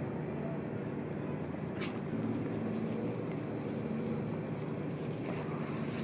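A steady, low mechanical hum, like a motor running, with a short rush of noise about two seconds in.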